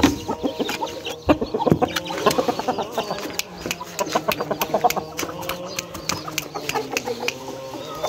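Chickens clucking in quick runs of short calls, about a second in and again around the middle, over sharp clicks and knocks from a wooden coop door and its wire mesh as the door is opened.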